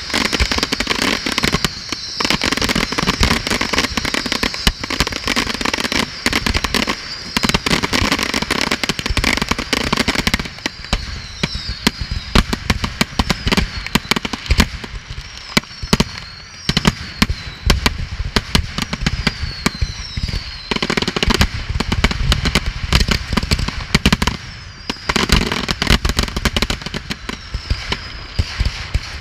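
Fireworks display: a dense barrage of shell bursts, bangs and crackling pops, with several short whistles in the middle.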